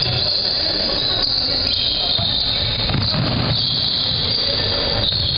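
Basketball shoes squeaking on a gym court during play, high squeals over a steady din.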